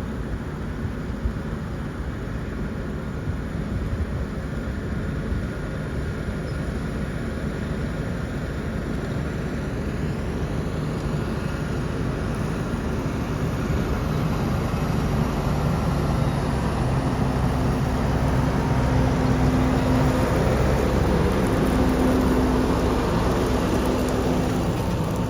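Fendt 720 tractor's diesel engine working under load while pulling a four-furrow reversible plough. It grows steadily louder as it comes closer, and its steady engine drone stands out clearly over the last several seconds.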